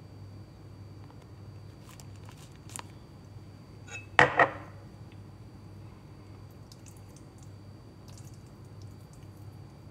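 A glass tumbler of water set down on a kitchen counter, with two sharp knocks close together about four seconds in, over a low steady hum.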